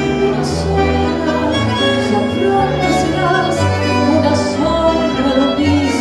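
Live tango ensemble of violin, bandoneón, piano and double bass playing, with a woman singing over it; the violin stands out above the band.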